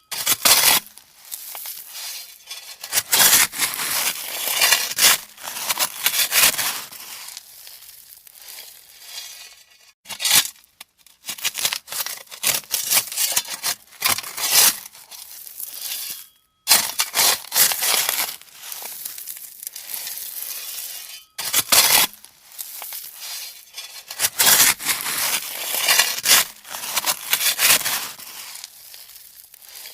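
A shovel scooping and scraping through gravel: repeated crunching, grinding scoops of stones at an irregular pace, with short pauses between some of them.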